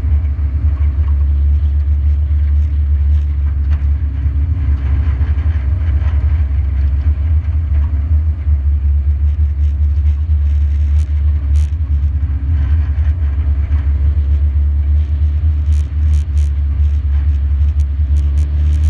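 A short-track stock car's engine running at a steady pitch, a loud, low drone picked up by a camera mounted on the car, with a few sharp clicks near the end.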